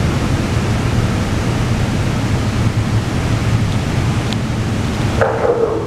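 SEPTA Regional Rail electric train pulling out of an underground station: a steady, loud rumble of wheels on rail, echoing in the tunnel. Near the end the rumble thins and a short pitched sound comes in.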